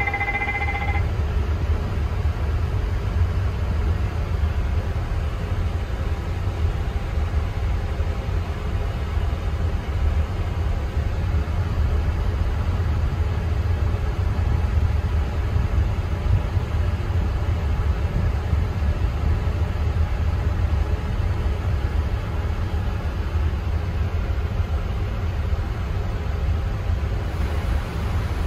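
Steady low rumble with a fainter hiss in a Boeing 777-300ER cockpit with the APU running. A steady two-pitched electronic tone stops about a second in.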